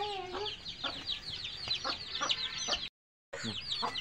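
A brood of chicken chicks peeping continuously in many short, high, falling chirps, with a few soft knocks. The sound cuts out for a moment about three seconds in.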